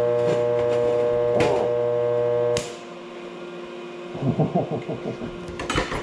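Vulcan Commander 225 transformer stick welder on AC: the arc burns with a steady, loud buzz for about two and a half seconds, then cuts off suddenly as the arc goes out. This is the distinctive AC buzz of a transformer buzz box; the arc is hard to strike and hold on AC. Afterwards the machine's quieter hum carries on.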